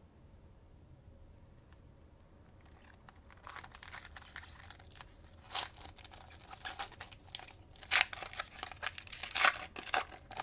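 Foil wrapper of a Panini Chronicles trading-card pack being torn open by hand and crinkled: quiet for the first few seconds, then irregular crackling broken by several sharp rips.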